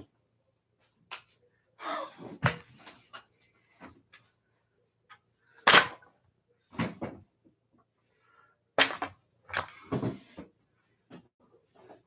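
Scattered knocks, clatters and rustles of objects being handled and moved about, with silence between. The sharpest knock comes about six seconds in.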